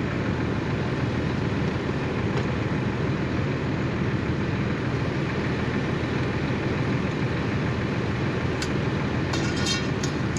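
An engine running steadily at an even speed, with a few short clicks near the end.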